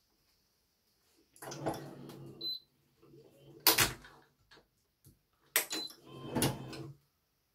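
A Victor Brave Sword badminton racket being strung with BG80 string on a stringing machine. There are three bursts of work, each with a low steady hum about a second long, the string rubbing as it is pulled and tensioned, and sharp clicks. The loudest click comes a little past the middle.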